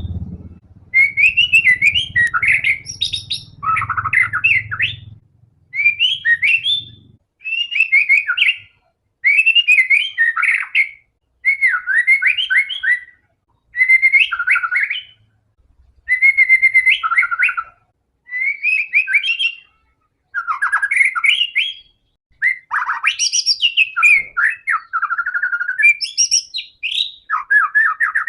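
White-rumped shama (murai batu) singing vigorously: a loud run of fast, varied whistled phrases, each a second or two long with short pauses between. This is full 'gacor' song of the kind played to set other shamas singing.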